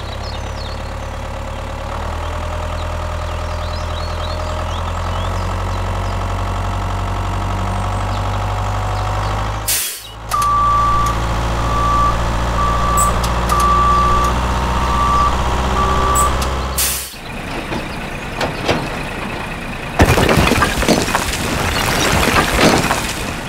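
A heavy diesel engine runs steadily; after a short break it keeps running while a reversing alarm beeps about once a second, six times. Near the end comes a loud clatter of small bricks sliding and tumbling out of a tipping trailer.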